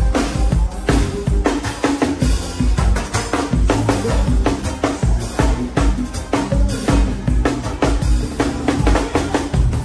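Drum kit playing a fast forró groove, kick drum and snare loud and close, over the rest of the live band's music with sustained low pitched notes underneath.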